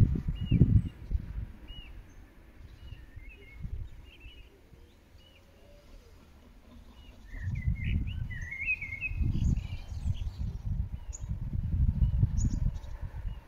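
Birds chirping, a short call repeated every second or so, with a brief burst of livelier song about eight seconds in. Under it, a gusty low rumble of wind on the microphone comes and goes, strongest near the start and through the second half.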